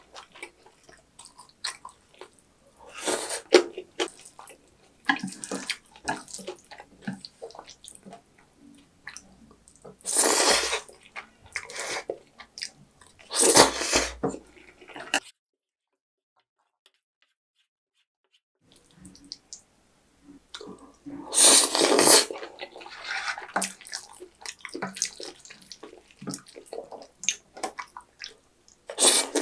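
Close-miked mukbang eating of black-bean-sauce (jajang) ramen noodles: about four loud slurps, with wet chewing and mouth smacks in between, and small clicks of chopsticks and a wooden spoon against the dish. Dead silence for a few seconds past the middle.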